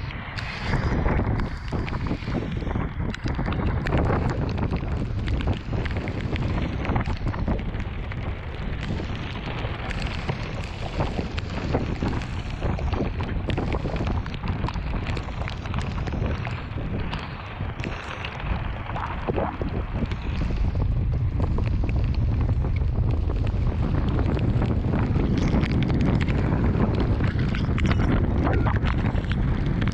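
Strong thunderstorm wind gusting and buffeting the microphone in a heavy rumble, growing louder and steadier about two-thirds of the way through.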